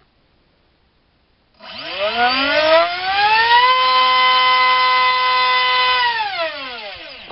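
4000kv brushless T-Rex 450 helicopter motor spinning a 4.75 x 4.75 TGS propeller on a thrust stand. After about a second and a half of quiet, the whine rises as it is throttled up, holds steady at full throttle for about two seconds, then falls as it spools down and stops just before the end. The run sounds smooth, the prop balanced well by the tester's ear.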